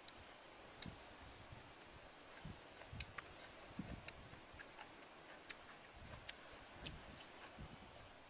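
Faint, irregular clicks of a metal spoon against a ceramic soup bowl, about ten of them, with soft low chewing sounds between.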